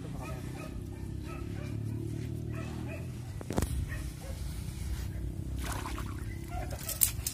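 Short repeated animal calls over a steady low rumble, with two sharp knocks, one about three and a half seconds in and a louder one near the end.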